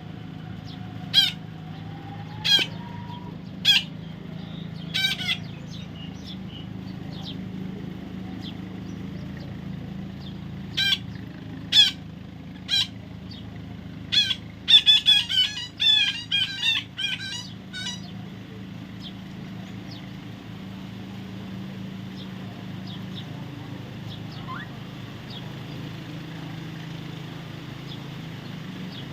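Parrot giving short, sharp screeching calls, single calls about a second apart, then a quick run of calls about halfway through before it falls quiet. A steady low hum runs underneath.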